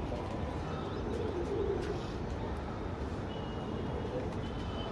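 Domestic pigeons cooing now and then over a steady low background rumble, with a faint high bird chirp or two near the end.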